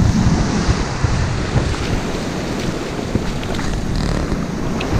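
Sea surf washing up the beach, foaming water close by, with wind buffeting the microphone in an uneven low rumble.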